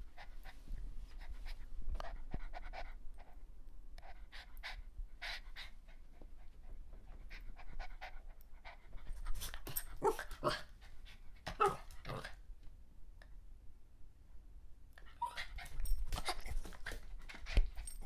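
A puppy panting, with quick irregular short mouth sounds that come thickest about halfway through and again near the end.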